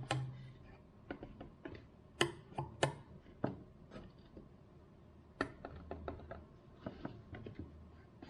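Irregular, sharp plucks on the tines of a 3D-printed kalimba, mostly clicky, with a few low notes that ring briefly.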